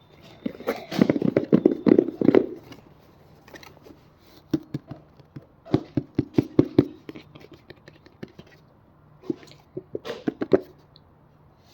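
Fingers tapping and scratching on a blind-box package in quick runs of taps. The busiest run is about a second in, another comes around five to seven seconds in, and a short one comes near the end.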